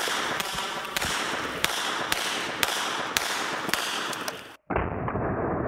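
.22 LR gunfire hitting soda cans: sharp cracks about every half second over a steady hiss. Near the end the sound cuts off suddenly to a duller, steady noise.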